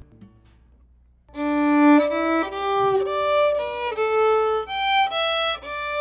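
Solo violin played with the bow: after a little over a second of quiet, a smooth melody of held notes begins, each note lasting about half a second.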